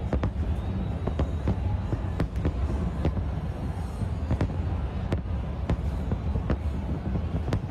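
Fireworks going off: irregular sharp bangs, one after another, over a steady low rumble.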